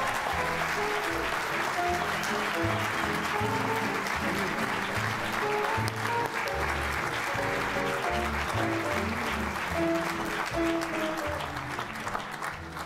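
Audience applauding over instrumental music with a bass line, the applause dying down near the end.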